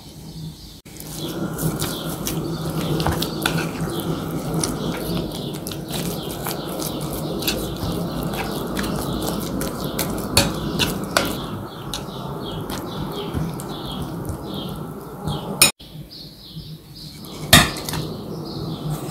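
Food being stirred and mixed in a bowl with a utensil: a continuous mixing noise with frequent irregular clinks against the bowl. It stops abruptly a few seconds before the end, followed by one sharp clink.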